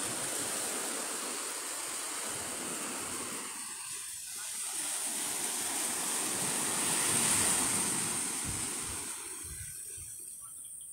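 Small sea waves breaking and washing up on a sand beach: a continuous rushing surf that swells and eases, dipping about four seconds in and again near the end, loudest just past the middle.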